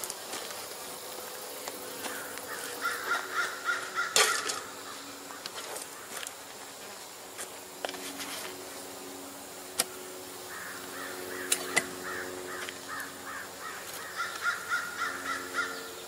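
Honeybees humming around an open beehive, with a bird calling in two runs of quick repeated harsh notes and a few sharp knocks from handling the hive, the loudest about four seconds in.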